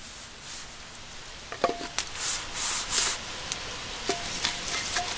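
A cast iron pot being set onto a small wood fire. A few light clicks come with short metallic rings from its wire bail handle, and there are brief bursts of hissing between them.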